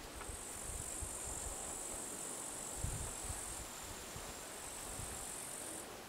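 A cricket-like insect trilling continuously at a high pitch, stopping just before the end. Occasional low, dull bumps under it.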